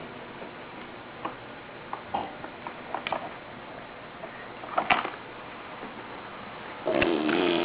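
A person's tongue clicks, a handful of sharp separate clicks at irregular spacing, the loudest about five seconds in. Near the end a voice starts up.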